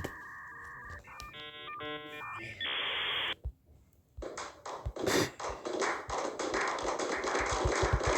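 Electronic tones: a steady beep, then a quick run of short multi-pitched beeps and a burst of hiss. After a brief gap, about four seconds in, comes a steady crackling noise with scattered clicks.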